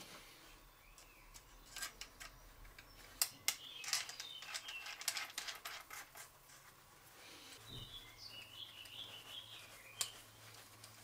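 Small clicks and taps of TIG torch parts being handled and fitted by hand: the copper collet, collet body and pink ceramic nozzle clicking against the torch head, with a quick run of clicks about four to five seconds in and a sharper click near the end. Faint high chirps come and go in the background.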